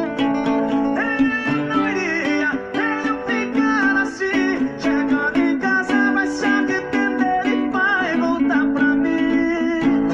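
Acoustic guitar playing steady, rhythmic chords in a sertanejo song's instrumental passage, with a sliding, wavering melodic lead line over them.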